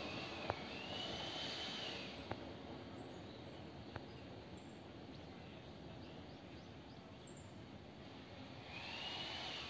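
Quiet outdoor ambience beside a railway line, with a faint high-pitched squeal that dies away about two seconds in and comes back near the end. Three faint clicks are scattered through.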